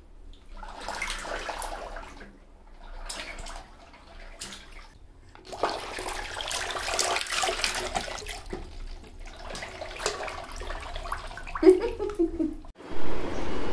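Water splashing and sloshing in a plastic baby bathtub, stirred by a wind-up swimming turtle bath toy. The splashing is busiest in the middle.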